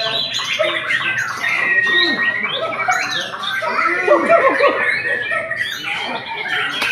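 White-rumped shama (murai batu) singing hard, a rapid run of varied whistles, trills and sweeping notes, overlapping with other competing songbirds at a bird-song contest, with people's voices in the background.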